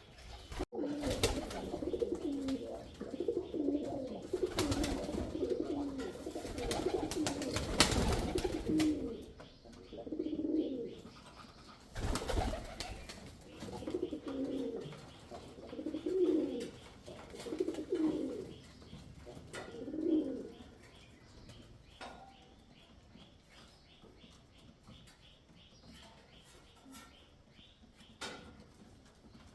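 Male pigeon cooing, low and repeated: a near-continuous run of coos for the first several seconds, then single coos about every two seconds, dying away after about twenty seconds. Four short loud noises break in during the first half.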